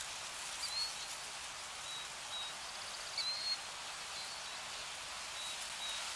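Outdoor ambience of birds giving short, high chirps now and then, a few close together about three seconds in, over a steady rushing hiss.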